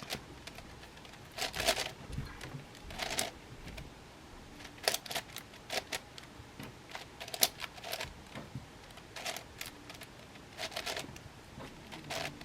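Layers of a 9x9 cube being turned by hand: short plastic clicks and scrapes, one brief cluster every second or two, as the moves of the pattern algorithm are made one by one.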